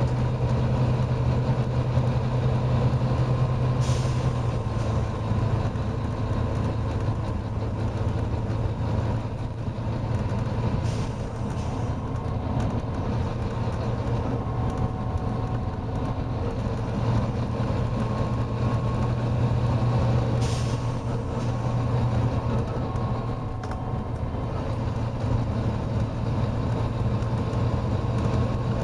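Volvo B9TL double-decker bus's diesel engine running steadily under load with a constant low drone, and brief hisses from the air system about four, eleven and twenty seconds in.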